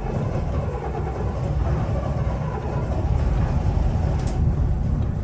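Mechanical marine diesel engines idling in neutral just after a first cold start, with a steady low rumble.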